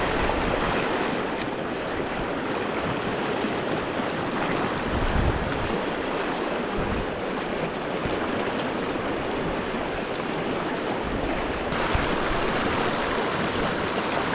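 Steady rush of flowing river water; the hiss turns brighter near the end.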